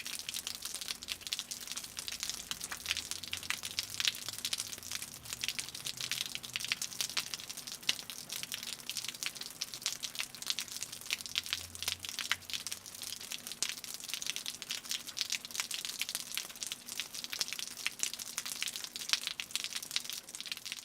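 Rain dripping from a roof: a dense, irregular patter of drops ticking and splashing, with no steady rhythm, until it fades out at the end.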